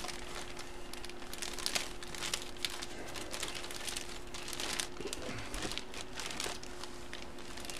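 Clear plastic bag crinkling and rustling in the hands as a packaged sports jersey is handled and pulled out, with irregular crackles throughout.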